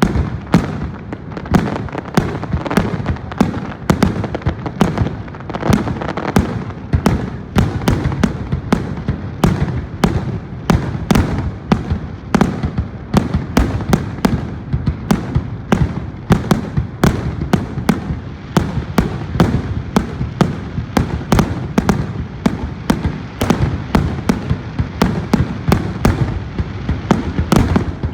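Fireworks display: a rapid, continuous barrage of shell bursts, several bangs a second over a rolling low rumble.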